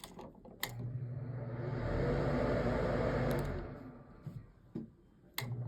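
A click, then an electric motor hum in the car that builds up, runs steadily for a couple of seconds and winds down. A second click near the end starts it up again.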